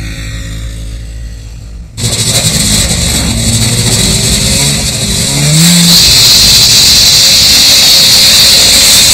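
Snowmobile engine running at speed, cutting in suddenly about two seconds in with a loud hiss. Its note rises about halfway through as it speeds up, and it then runs loud and steady. Music is heard briefly at the start.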